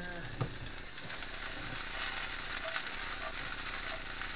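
Bean sprouts frying in a pan in freshly added oil: a steady crackling sizzle that grows louder after about a second, with a single knock near the start.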